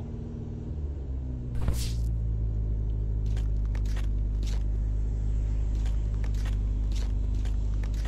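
Low, steady engine rumble of a vehicle idling, stepping up slightly about a second and a half in, with a scatter of light clicks over it.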